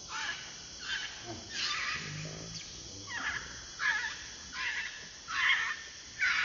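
Infant macaque squealing over and over: a quick series of about eight short, high, falling cries, roughly one every 0.7 seconds, getting louder toward the end.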